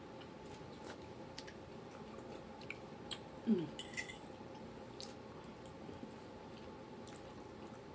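People eating close to the microphone: soft chewing with scattered small mouth clicks, over a faint steady hum. A brief vocal hum falls in pitch about three and a half seconds in.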